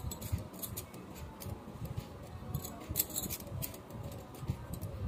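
Bangles clinking lightly as a stack is worked over the hand onto the wrist: scattered small clicks and jingles.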